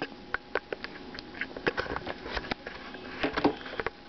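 Dog sniffing close to the microphone: a run of short, irregular sniffs.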